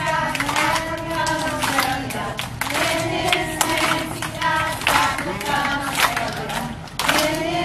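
A group of schoolchildren singing a song together, with rhythmic hand clapping along to it; the singing breaks off briefly near the end and starts again.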